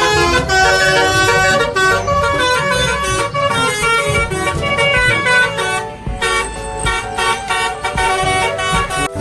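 Basuri-style 'telolet' bus horn playing a quick multi-note tune of stacked horn tones, with a brief dip about six seconds in.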